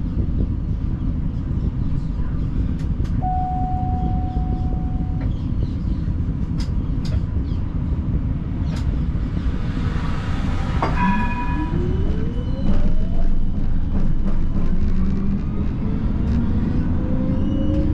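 Siemens Combino tram pulling away from a stop, its traction motors whining upward in pitch as it accelerates, over a steady low rumble. A single steady beep lasting about two seconds comes a few seconds in.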